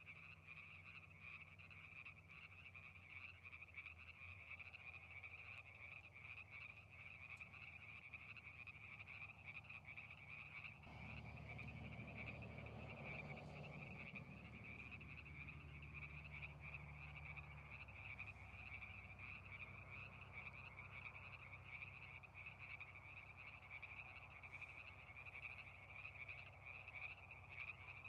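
A faint, dense chorus of frogs calling without pause. A low hum rises under it about eleven seconds in and eases off a few seconds later.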